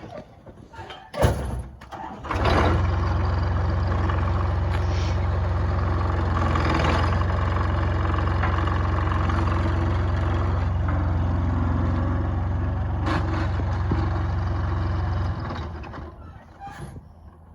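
Toyota skid steer's engine running steadily at an even pitch. It comes in after a knock about a second in and drops away, fading out, near the end.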